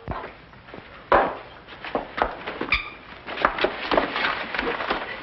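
Bustling commotion: a run of irregular knocks, thumps and clatter, the sharpest about a second in, as people hurry around a man slumped at a pub table.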